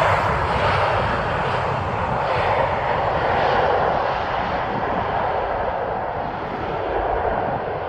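Jet airliner on landing approach passing close by: a loud, steady engine rush that grows duller as it moves away.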